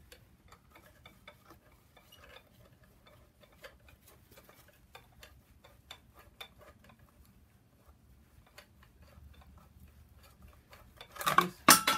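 Faint, irregular metallic ticking of hand tools on a turbocharger bolt of a BMW N54 engine as it is worked loose, then a short, loud clatter of metal near the end.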